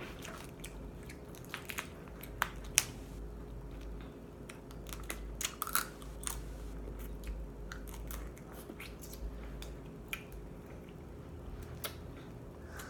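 Close-up eating of boiled crab legs: chewing and biting the meat, with irregular sharp clicks and cracks as the shells are snapped and picked apart by hand.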